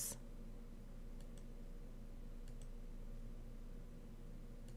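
Faint computer mouse clicks, two close pairs about a second apart, over a low steady hum.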